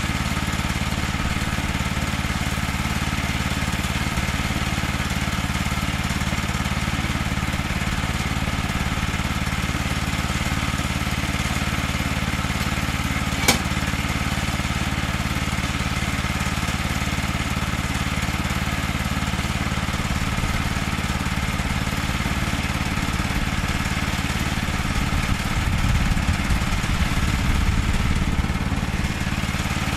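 Small gasoline engine of a Woodland Mills HM122 portable bandsaw mill idling steadily. There is one sharp click about halfway through and a heavier low rumble for a few seconds near the end.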